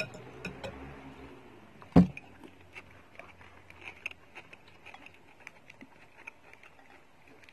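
Spoon and fork clinking and scraping against a soup bowl as meatballs are cut up in broth, a run of small irregular clicks. One loud thump about two seconds in.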